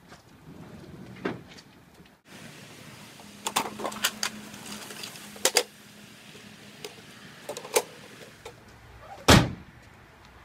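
Aluminium folding truck ramps clanking and clicking as they are handled, with a run of sharp metallic clicks and knocks. Near the end comes a single heavy slam of the pickup's tailgate being shut, the loudest sound.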